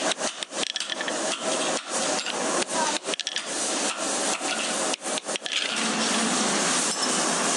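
Hand hammer tapping steel pins through a knife's wooden handle scales on a steel anvil block: a run of irregular sharp metal taps that stops about five and a half seconds in, leaving only steady background noise.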